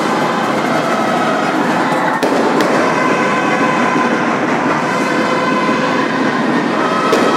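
Loud, continuous rattling of snare drums from a school drum-and-bugle band playing a march, with faint held tones over it and a few sharp clicks.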